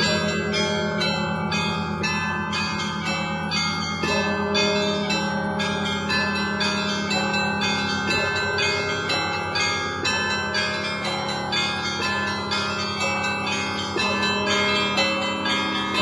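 Russian Orthodox church bells ringing from the Spaso-Preobrazhenskaya bell tower: small bells struck quickly, about three strokes a second, over the sustained hum of the larger bells. The rhythm of the middle bells shifts every few seconds.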